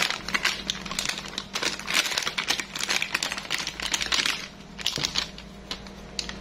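Foil-lined plastic packets of batter powder crinkling and crackling as they are handled and shaken out over a steel mixing bowl. A dense run of sharp crackles thins out near the end.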